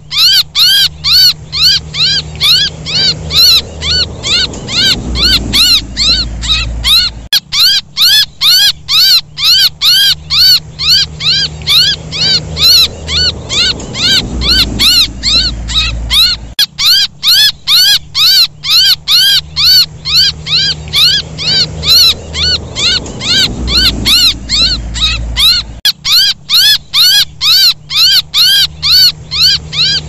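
Baby bird's distress calls played as a bird-hunting lure: fast, evenly repeated chirps, each a quick rise and fall in pitch, over a low hum. The recording loops about every nine seconds.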